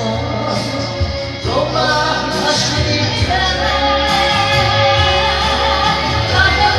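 Karaoke backing music for a Japanese song, with a woman singing along into a handheld microphone.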